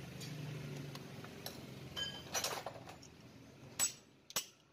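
Small metal parts and tools clinking: a light metallic ring about two seconds in, a short rattle, then two sharp clicks near the end.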